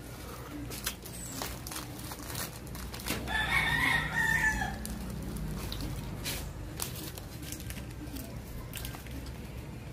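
A rooster crowing once, about three seconds in, for about a second and a half, over scattered faint clicks.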